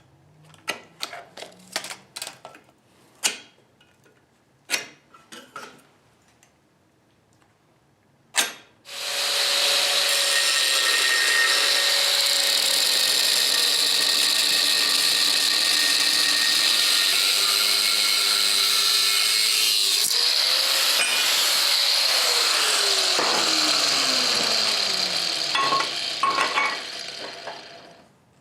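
Angle grinder with a thin cutoff disc cutting steel bar: a loud, steady, high-pitched grinding for about seventeen seconds, then the motor winds down with a falling pitch. Before it starts, a few scattered clicks and knocks of the tool and steel being handled.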